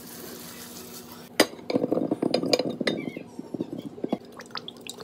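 A wooden spoon knocking and scraping against a ceramic baking dish, then cherry tomatoes dropping into the dish with light clinks and taps.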